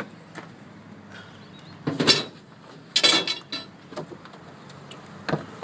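A campervan's exterior storage hatch being unlatched at its handle and swung open: several separate knocks and clunks, with a louder rattle about three seconds in.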